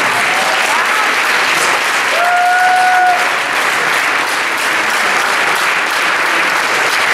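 Audience applauding steadily at a curtain call. About two seconds in, one held note stands out above the clapping for about a second.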